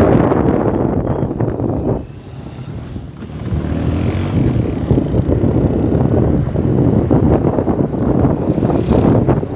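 Wind buffeting the phone's microphone on a moving Kymco Like 125 scooter, with the engine and road noise underneath. The noise drops off about two seconds in and picks up again a second or so later.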